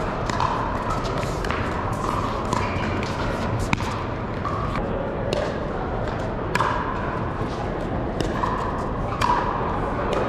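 Pickleball paddles striking a hard plastic ball: sharp pops every second or so from this and neighbouring courts, ringing in a large, echoing hall over a steady murmur of players.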